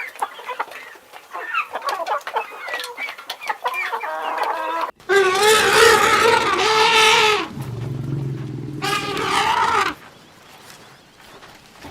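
Chickens clucking in quick short calls, then a rooster crowing with one long crow of about two and a half seconds, followed by a shorter call.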